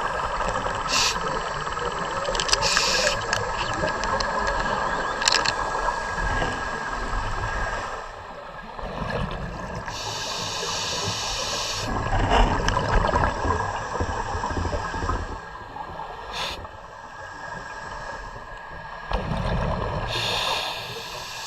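Scuba regulator breathing underwater: a few sharp hissing inhalations, the longest about 10 s in, alternating with rumbling, gurgling exhaled bubbles.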